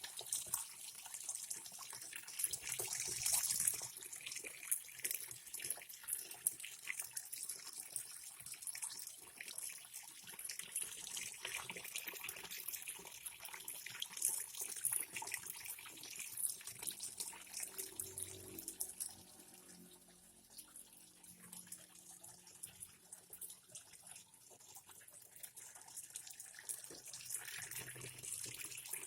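Tap water pouring and splashing into the wash tub of an LG twin-tub washing machine as it fills, with detergent already added. It runs steadily and grows a little softer about two-thirds of the way through.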